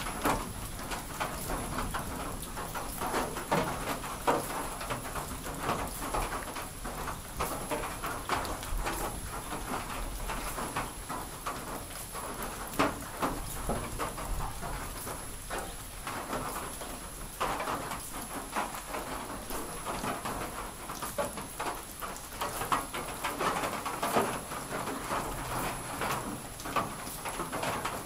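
Light rain and steady dripping, with a constant patter of small drops, while chickens make low murmuring calls.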